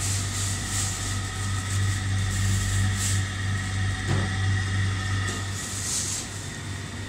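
Steady low electrical hum of refrigerated glass-door drink coolers, with brief rustles from the phone being carried and moved. The deepest part of the hum weakens near the end.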